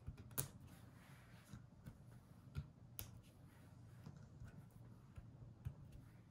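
Faint, scattered small clicks and taps from craft scissors tips and fingertips as self-adhesive gems are picked off their backing sheet and pressed onto card stock. The sharpest click comes about half a second in.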